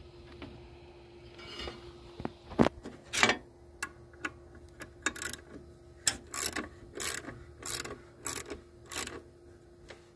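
Socket ratchet clicking in repeated strokes as the nuts for the fan and water pump pulley are snugged down. The strokes start about two seconds in and come roughly every half-second to second.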